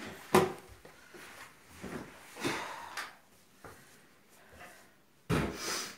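Metal spoon knocking and scraping in a plastic mixing bowl of minced-meat mixture, with a sharp knock just after the start and a few softer scrapes. Near the end comes a brief noisy rush of about half a second.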